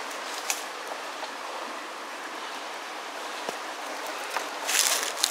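Steady outdoor hiss with a few faint scattered clicks, and near the end a brief rustle of footsteps scuffing on rough rocky ground.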